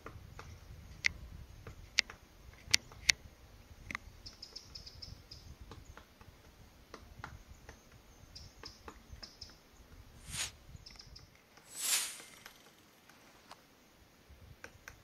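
Lilford's white-backed woodpecker tapping at tree bark: a handful of sharp single taps in the first four seconds, then fainter scattered ones. Faint high chirps come twice, and a louder brief burst of sound comes near the end.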